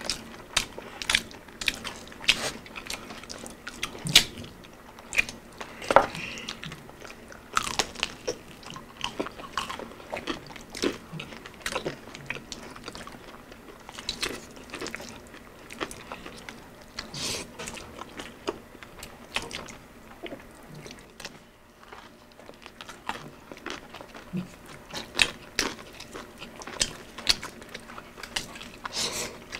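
Eating sounds from crispy fried chicken: irregular crisp crunches as the breading is bitten, mixed with chewing, with a short lull a little past two-thirds of the way in.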